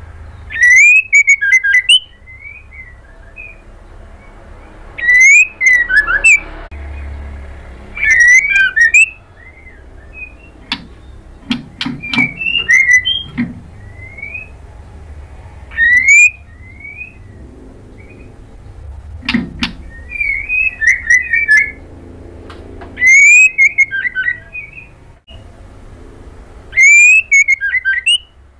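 White-rumped shama singing: short, loud bursts of rising whistled phrases every three to four seconds, with softer whistles in between.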